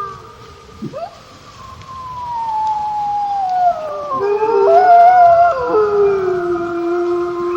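Wolves howling: a long howl gliding down in pitch, joined midway by several other voices overlapping in a chorus, then one voice holding a steady lower note.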